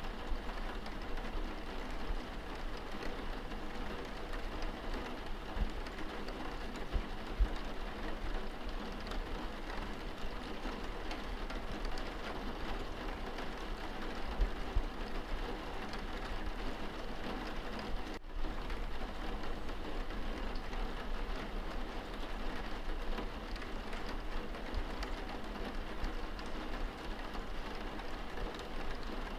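Steady rain pattering on a window, heard from indoors, with small scattered drop hits and a brief dropout about two-thirds of the way through.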